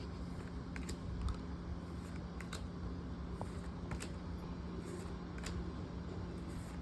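Pokémon trading cards being handled and slid one behind another, giving faint scattered clicks and rustles over a low steady hum.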